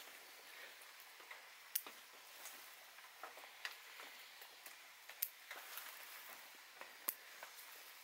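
Bonsai scissors snipping the shoots of a small satsuki azalea being pruned: four sharp snips spaced about two seconds apart, with lighter clicks of the blades in between.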